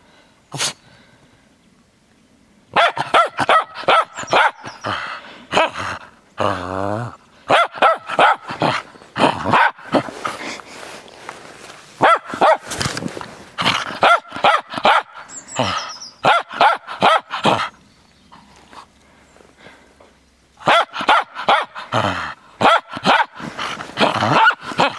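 Cairn Terrier barking frisky and excited, in quick runs of short sharp barks with brief pauses between the runs. About six and a half seconds in there is one longer, wavering call.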